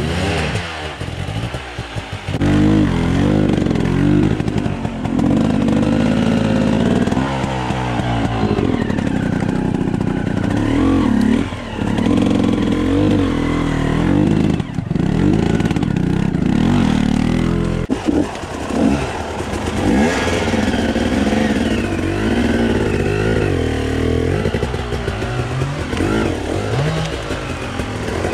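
Off-road enduro motorcycle engine revving up and down again and again as the bike is worked slowly over obstacles, the pitch rising and falling with each burst of throttle.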